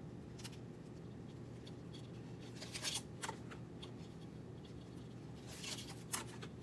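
Light handling noises from working a 3D printer's wiring and wire organizer by hand: a few short clusters of rustles and clicks, about a second in, near the middle and near the end, over a steady low hum.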